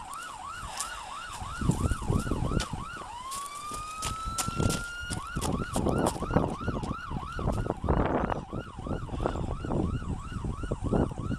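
Emergency-vehicle siren in a fast yelp, about three rising-and-falling cycles a second. A little after three seconds in it switches to one long rising wail for about two seconds, then goes back to the yelp. Irregular knocks and a brief burst of rustling noise sound under it.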